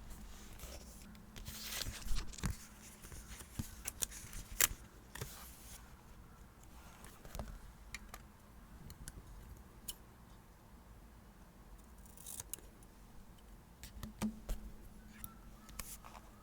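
Paper and stationery being handled at a desk for diary decorating: scattered small clicks and taps with short papery rustles and swishes, busiest in the first few seconds and again near the end.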